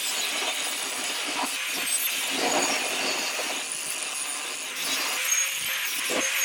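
Angle grinder grinding down weld beads on a steel frame: a continuous grinding noise that swells and eases as the disc is worked along the welds.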